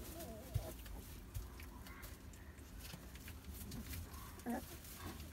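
Young puppies giving a few short whimpers and squeaks while play-wrestling, with a couple of soft knocks.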